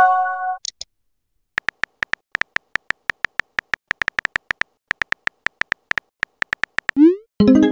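Texting-app sound effects. A short electronic chime opens, followed by rapid keyboard-click ticks, several a second, as a message is typed. Near the end a rising swoosh sounds as the message is sent, then another chime.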